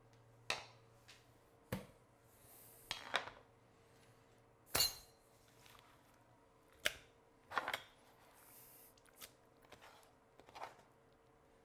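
A chef's knife tapping on a cutting board, then a stainless steel mixing bowl set on the board and diced tomatoes scooped into it by hand. Scattered knocks and light clinks a second or so apart, the loudest about five seconds in, with soft rustling scrapes between.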